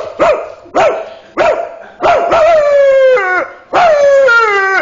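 A person imitating a bulldog barking: three short, loud barks, then two long drawn-out barking calls that fall in pitch.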